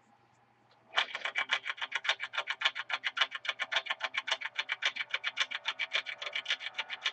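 Intro music that starts suddenly about a second in, a fast, even run of plucked-string notes at about eight or nine a second.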